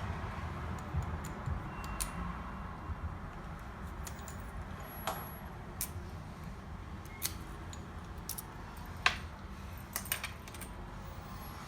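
Sparse, sharp little metallic clicks and clinks at irregular moments, the loudest about nine seconds in, over a steady low hum: small lock parts being handled on a workbench.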